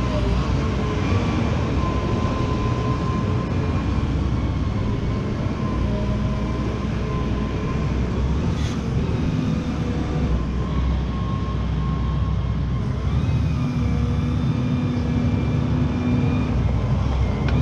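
Hitachi ZX140W-3 wheeled excavator's diesel engine running steadily as the machine drives and manoeuvres, with a thin steady whine over the engine noise.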